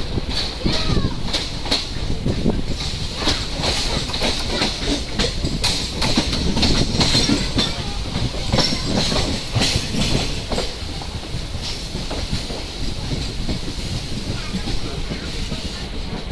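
Train running along the track: a steady rumble with wheels clicking over rail joints, the clicks coming thick and fast for about ten seconds and thinning out after.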